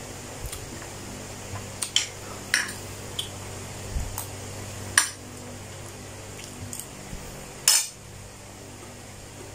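Scattered sharp clinks and taps of dishes and cutlery while eating, the loudest about five and eight seconds in, over a steady low hum.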